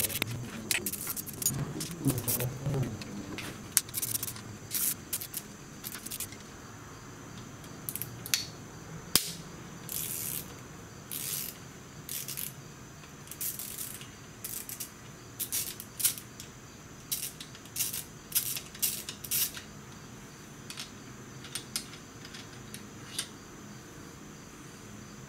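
Ratchet wrench clicking in short runs, with metallic clinks, as the clutch cover bolts are loosened one after another; the runs come every second or so and grow sparser near the end.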